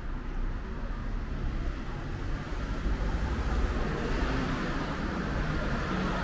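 Road traffic: cars passing with a steady low rumble, and tyre noise swelling from about four seconds in.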